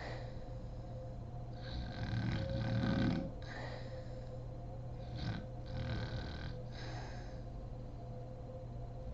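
A sleeping woman snoring: a loud, rasping snore about two to three seconds in, then softer snoring breaths, over a steady low hum.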